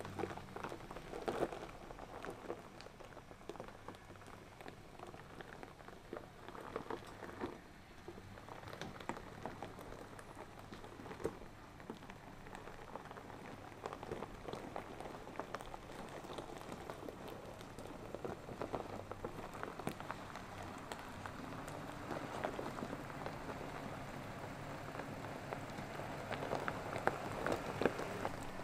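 Pickup truck crawling slowly over a rocky dirt trail: tyres crunching and popping on gravel and loose rock over a low engine hum, growing louder as the truck approaches.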